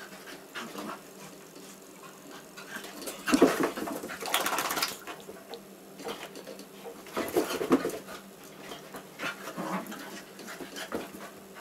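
A labradoodle and a basset hound play-fighting, giving dog vocalizations in separate bursts. The loudest comes about three and a half seconds in, with further bursts around seven and nine seconds.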